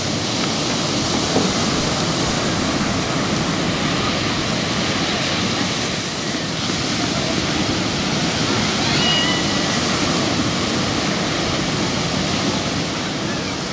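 Ocean surf breaking and washing through the shallows: a steady rushing roar of whitewater.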